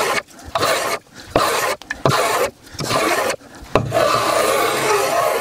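Small hand plane shaving the edge of a wooden shelf board in a series of quick strokes, about seven, the last one longer, each a rasping swish of the blade cutting a curl of wood.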